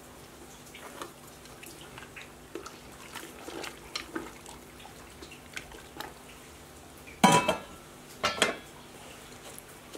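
Wooden chopsticks clicking against a stainless-steel stockpot while stirring. Then the pot's steel lid is set on with two ringing metal clanks, about a second apart, a little after halfway.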